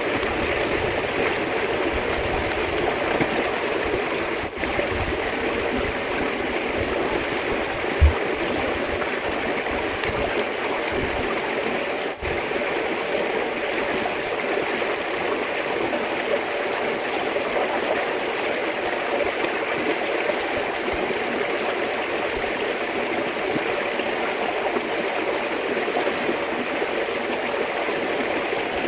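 Steady rush of flowing water, even throughout, with a few dull low thumps in the first half and one sharper knock about eight seconds in.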